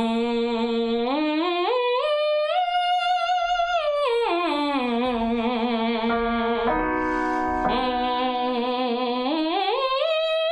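A woman's voice humming through a towel held over her mouth, a semi-occluded vocal warm-up against resistance. The pitch slides up about an octave and a half in steps, holds, and slides back down, twice over, with a quick breath in between.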